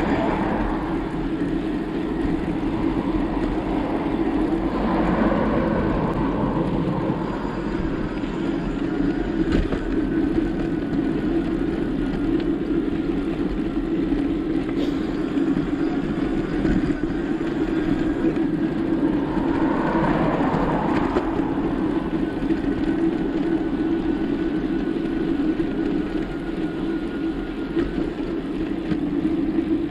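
Steady rumble of riding a bicycle, wind and tyre noise on the bike-mounted microphone, with slight swells a few seconds in and again about two-thirds of the way through.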